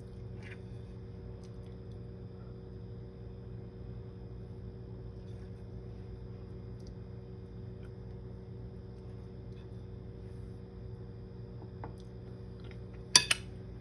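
Steady low hum of room tone with several fixed tones held throughout. A few faint light taps and clicks sound, and a sharp double click comes near the end.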